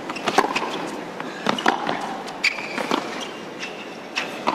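Tennis rally on a hard court: sharp pops of racket strikes and ball bounces, one about every second, some in quick pairs, with short shoe squeaks on the court between them.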